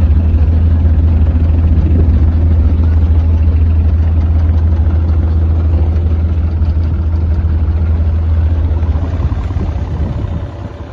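Diesel engine of a Deere 35G mini excavator idling with a steady low hum, which dies away near the end.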